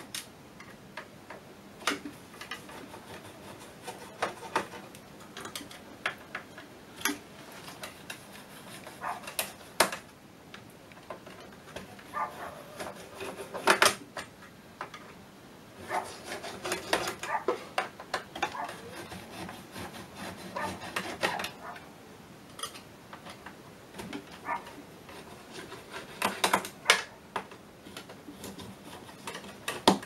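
Long hand screwdriver undoing the module screws on a metal autopilot rack: irregular scraping and rubbing as the blade turns in the screw heads, with scattered sharp clicks of metal on metal.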